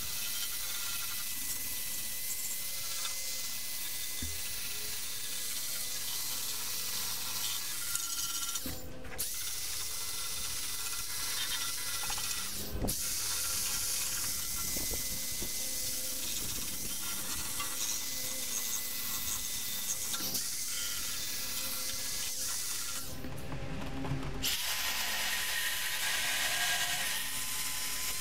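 Handheld corded rotary tool with an abrasive wheel running fast against the rusted metal of a barbecue, grinding the rust off down to bare metal. A steady high whine and hiss, with short breaks in the grinding about nine seconds in and again around twenty-four seconds.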